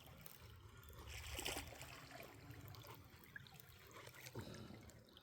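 Faint water trickling and splashing, with a slightly louder splash about one and a half seconds in.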